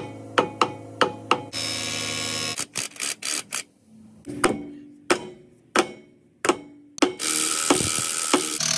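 Sharp hammer blows on steel, a few every second or so, broken by two bursts of a pneumatic tool: one for about a second early on and another from near the end. The work is on a SAF trailer hub seized tight on its stub axle.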